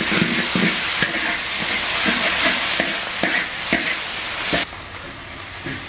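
Garlic, ginger and chili bean paste (doubanjiang) sizzling in hot oil in a large wok. A steel wok spatula scrapes and knocks against the wok every second or so as the mix is stir-fried. The sizzling drops sharply a little past four and a half seconds in.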